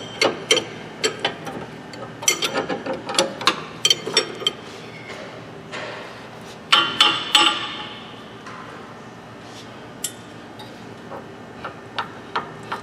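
Irregular metallic clinks and knocks of hand tools and loose suspension parts being handled during lower control arm removal, thickest in the first few seconds and again in a short burst about seven seconds in, then sparse.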